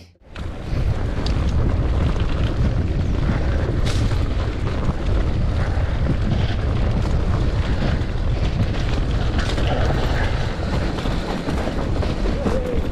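Wind buffeting the camera microphone over the rumble of a mountain bike running fast down a rough trail. The loud, steady noise starts abruptly just after the start.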